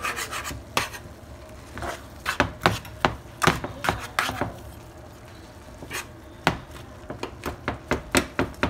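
Metal slotted spatula scraping and clacking against a skillet as it stirs and chops up browned ground beef, in irregular knocks that come in quick clusters.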